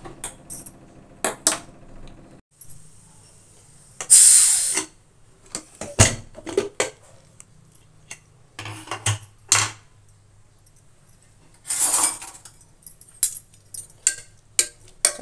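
Aluminium pressure cooker: metal clinks of its lid and weight, then one loud hissing burst of escaping steam about four seconds in, typical of the cooker whistling under pressure. After that come clanks of the lid and pot and a metal spoon scraping and stirring the cooked dal, with another short scraping rush near the end.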